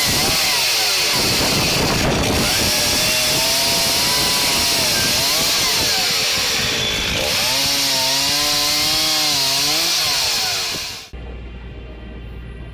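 Chainsaw running and cutting through wood, its engine pitch sagging and rising as the chain loads in the cut. It cuts off abruptly near the end, leaving a low steady hum.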